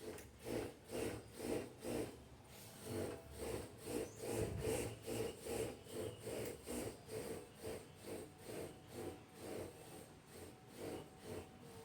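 Electric fan making a rhythmic rubbing scrape, a little over two strokes a second.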